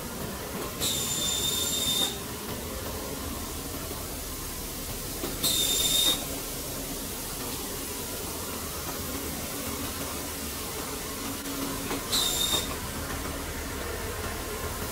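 Three short whistling hisses, the first lasting about a second and the others shorter, over a steady background noise.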